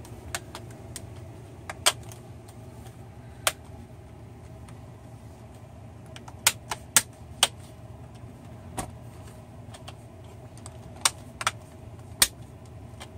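Plastic clips of a laptop screen bezel snapping into place as the trim is pressed home around the lid: about a dozen sharp clicks at irregular spacing, several close together around the middle.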